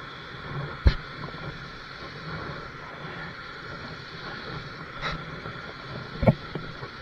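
Three sharp knocks, about a second in and twice more near the end, as the rope and grappling claw are handled against the bridge railing. Under them runs a steady rush of water from the dam's waterfall.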